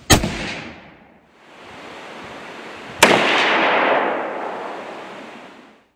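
A Marlin 336 .30-30 lever-action rifle firing: a sharp report right at the start, then a second report about three seconds in that trails off in a long rolling echo.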